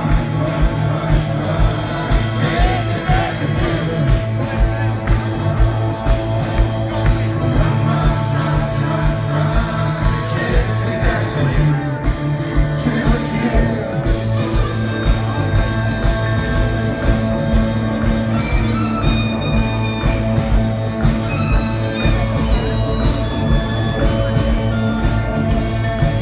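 Live rock band playing with a sung lead vocal over a steady, fast drumbeat, bass guitar, guitars and keyboards, heard from within the audience.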